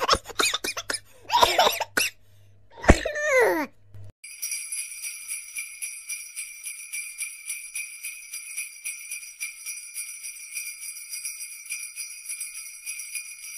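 A few short cartoon-style voice sound effects and a falling glide, then from about four seconds in, jingle bells shaken steadily in a quick, even rhythm.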